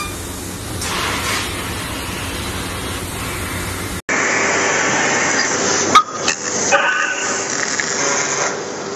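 Steady hissing machine noise from a flatbed sheet-metal laser cutting machine, breaking off abruptly near the middle. Different machine noise with steady tones follows, with one sharp click about two seconds later.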